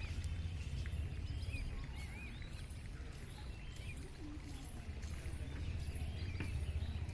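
Outdoor ambience: a steady low rumble with scattered faint chirps from small birds.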